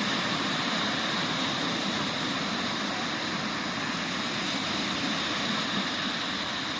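Sea waves surging on the shore after a summer storm, a continuous steady rush of surf with no separate breaks standing out.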